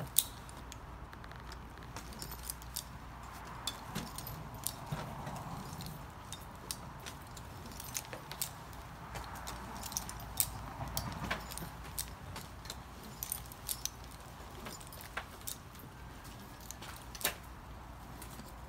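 Irregular sharp clicks and clinks of a climber's metal rope hardware as he works his way up a palm trunk, over a steady low background hum.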